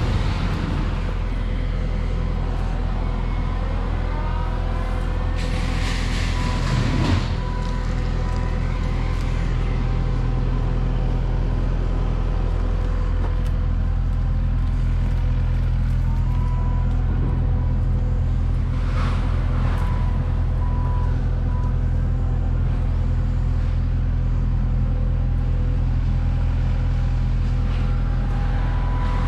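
Diesel engine of a compact land-clearing machine running at steady revs, with two brief hissing surges about six and nineteen seconds in.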